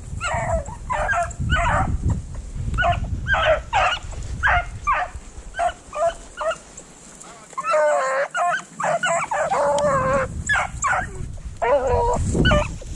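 Pack of rabbit hounds baying in short, irregular calls, with several voices overlapping from about eight to ten seconds in: the hounds giving tongue as they run a rabbit's track.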